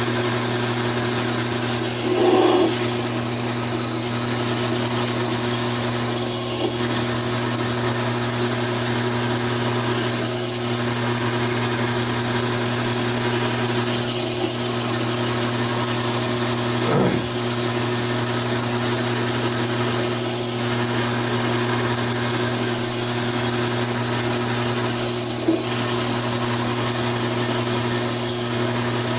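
Taig micro lathe running at a steady speed while a quarter-inch twist drill in its tailstock chuck bores into 1018 steel rod, giving a constant machine hum. The sound is briefly louder three times: about two seconds in, about halfway through and near the end.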